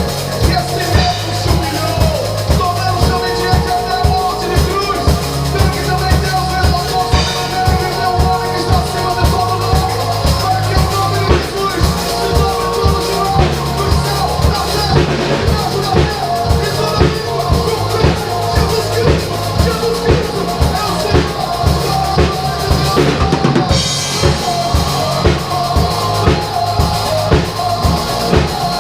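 A drum kit played by an amateur along with a recorded song, a steady beat of bass drum and snare with rimshots over the track's pitched instruments.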